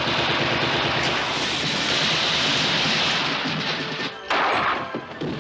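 Action-film soundtrack: a loud, continuous crashing din for about four seconds, then a short second burst, with music underneath.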